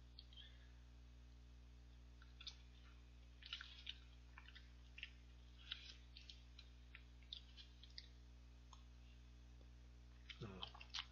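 Faint eating sounds: scattered small clicks and scrapes of a metal spoon scooping ice cream from a paper cup, and quiet chewing mouth noises. A slightly louder cluster of clicks with a short falling hum comes near the end.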